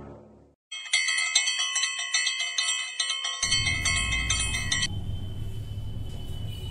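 Bright, bell-like metallic ringing, struck rapidly over and over, from about a second in until about five seconds in. It then stops, leaving low room noise.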